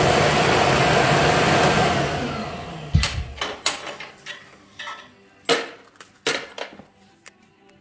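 Wood lathe running while brass pen tubes spinning on it are scratched with an abrasive to roughen them for a stronger glue bond. The lathe winds down about two and a half seconds in, followed by several sharp clicks and knocks as the tailstock and tubes are handled.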